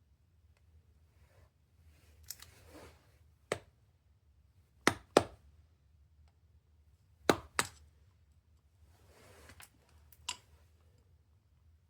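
Hammer tapping a punch to drive a pin through the body of a MAC AH650 air hammer: six sharp metal taps, two of them in quick pairs, with soft handling noise of the tool and parts between.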